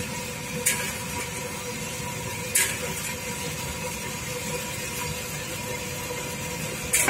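Steady rushing of the gas stove flame under a wok of frying oil, with a faint steady hum. A wire strainer scrapes or taps against the metal wok three times: about a second in, about two and a half seconds in, and at the very end, as the tofu balls are turned.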